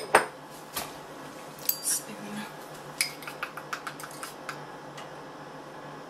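A spoon clinking against a bowl while stirring food-dyed powdered-sugar glaze: a few separate knocks, then a quick run of light taps about halfway through.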